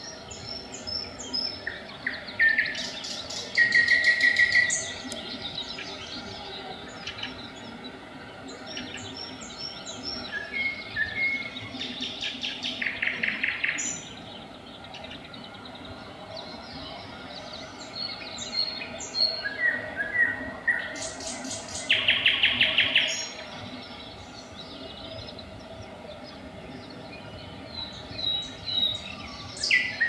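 Nightingale singing at dawn: separate phrases of whistles, clicks and fast repeated notes, with three loud rapid rolls, about four seconds in, near the middle and again near the end.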